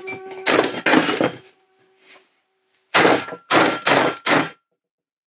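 Hammer blows on the metal body of a car AC compressor: two strikes in the first second or so, followed by a faint ringing metal tone, then four quick strikes about three seconds in, driving the last internal part out of the casing.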